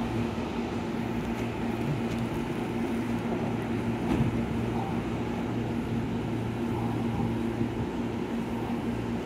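JR West 223 series electric train standing at the platform, its onboard equipment giving a steady low hum with constant tones.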